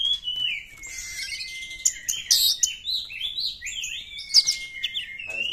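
Oriental magpie-robin singing: a varied run of clear whistles, with one long whistle held steady for about a second near the start, then a quick series of sharp, rising and falling notes.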